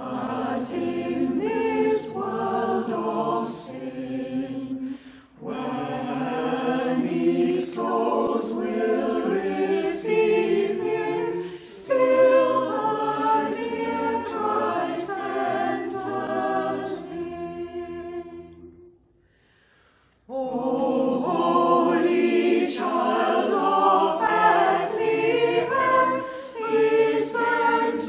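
Small mixed choir singing a Christmas carol unaccompanied. About two-thirds of the way through, a held chord dies away, there is a second of near quiet, and the singing starts again.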